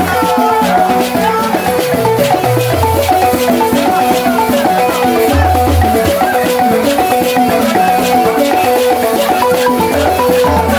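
Senufo kapala balafon played fast, with quick runs of short wooden-key notes and low bass notes struck every second or two, over a steady rattling shaker rhythm.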